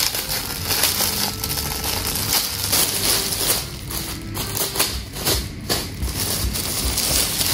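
Clear plastic polybag crinkling and crackling as it is handled and opened to take out a T-shirt, in irregular bursts that ease off in the middle and pick up again near the end.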